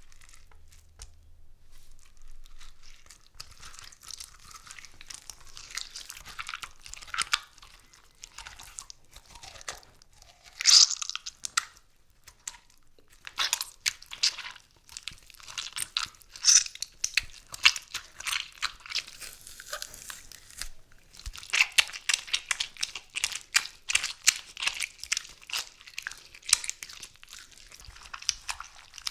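A melon being smashed and torn apart close to the microphone: a dense run of wet cracks and crackles of rind and flesh, with louder sharp hits about eleven seconds in and again through the second half.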